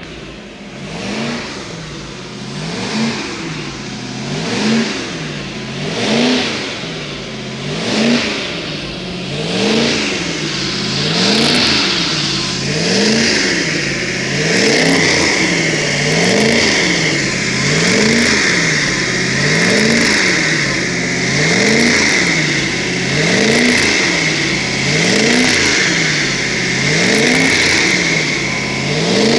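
Freshly rebuilt MerCruiser 454 big-block V8 running in for break-in, its revs rising and falling evenly, a little under two seconds per cycle. A steady high whine joins the engine sound about eleven seconds in.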